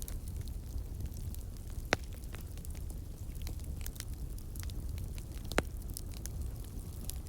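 Wood fire burning: a steady low rumble with many small crackles and two louder pops, about two seconds in and near the end.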